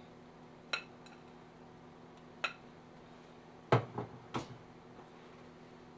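Glass mixing bowl and wire whisk clinking lightly twice, then a louder knock and a short clatter about three and a half seconds in as the bowl is set down on the counter, over a faint steady hum.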